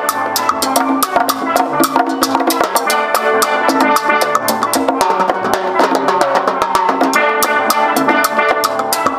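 Steel drum orchestra playing: many steel pans sounding a busy melody and chords over a drum kit keeping a steady beat with cymbal hits.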